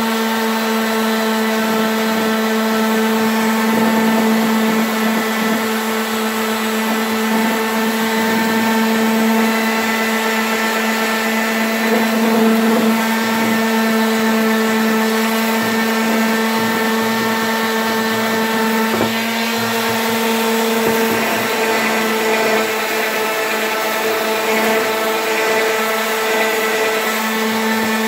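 Ryobi random orbital palm sander running steadily, its pad sanding blue paint off a steel double-bit axe head. A steady motor hum under the rasp of the sanding disc.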